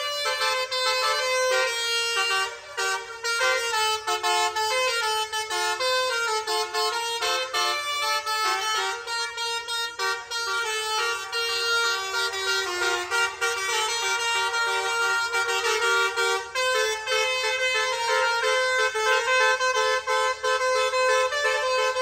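Bus telolet horn, a Basuri multi-tone air horn, played as a melody: several horn notes sound together and step from note to note in a continuous tune.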